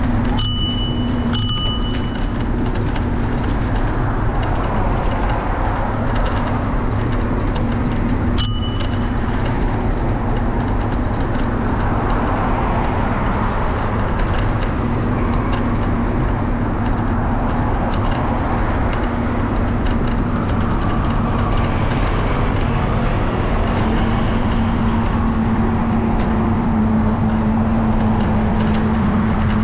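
A bicycle bell rung twice in quick succession near the start and once more about eight seconds in, each ring dying away quickly. Underneath is steady road traffic and wind noise from the ride, with a low hum.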